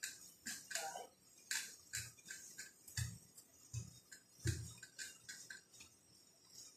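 Stationary exercise bike being pedalled: faint clicking from the pedal stroke, about two to three clicks a second, with a few soft low thumps.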